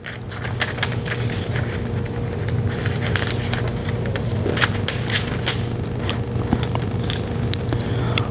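Crackling, scraping paper sounds of Bible pages being turned to find a passage, as a run of irregular short crackles and clicks. Under it runs a steady low hum that comes in at the start.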